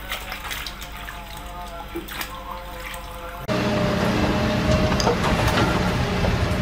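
A hand swishing and splashing in a basin of muddy, soapy water. About three and a half seconds in, the sound cuts abruptly to a much louder Doosan crawler excavator running and digging rock: a steady engine hum with scattered knocks of stone.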